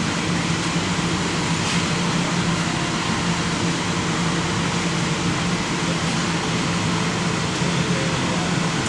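Steady hum with an even hiss from the air system of a spray-painting booth, running while base coat is sprayed.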